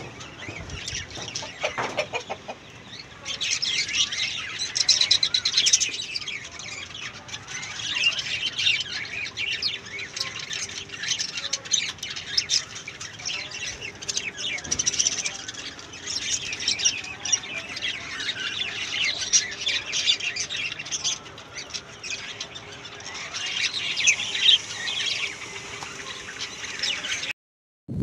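A flock of lovebirds chattering: many rapid, high-pitched chirps and squawks overlapping without a break.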